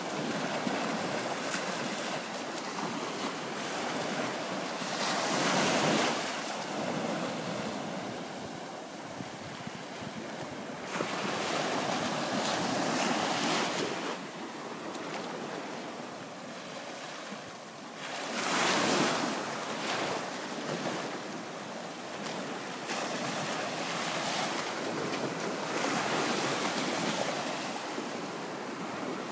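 Small bay waves breaking and washing up a sandy beach, the wash swelling and easing about every six seconds.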